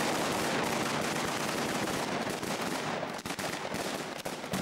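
A long string of firecrackers going off in one rapid, unbroken crackle of bangs, with a few louder single bangs near the end.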